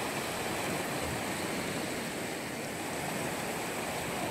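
Lake waves washing onto the shore, a steady rushing.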